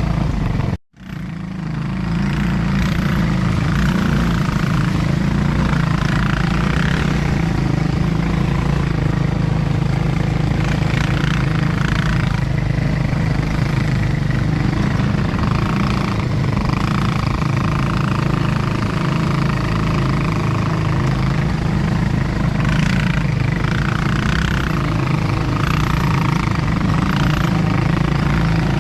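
ATV engine running steadily during a ride, with a strong low drone; the sound cuts out briefly about a second in.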